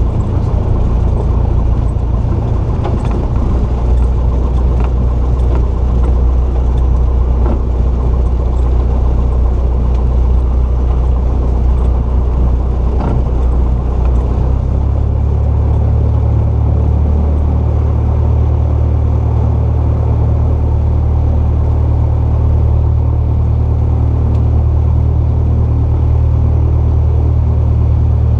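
Cessna 172's four-cylinder piston engine and propeller running steadily, heard from inside the cabin as a loud drone. About halfway through, the engine note shifts slightly as the power setting changes.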